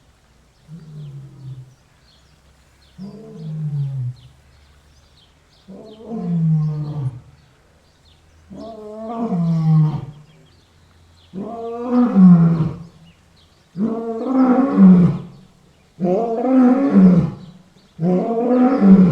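A lion roaring in a bout of about eight calls, one every two seconds or so, each dropping in pitch and louder and longer than the one before, building from low moans to full roars.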